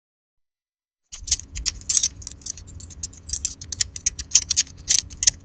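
Lock picking: metal picks working inside a lock, a rapid, irregular run of small metallic clicks and scratches that starts about a second in.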